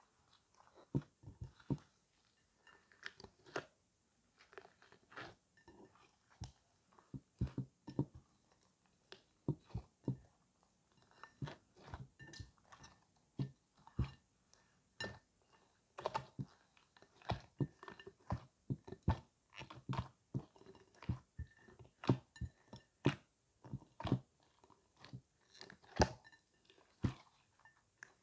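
Hands squeezing, stretching and pressing a glittery slime mixed with small foam beads, making irregular sticky pops and crackles, often several a second.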